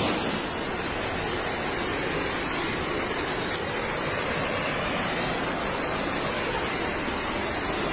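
Steady, even rush of storm water with no breaks or separate impacts.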